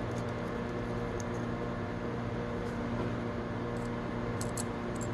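Steady mechanical room hum with a few faint, light clicks near the end as small gear sprocket parts are handled and fitted together.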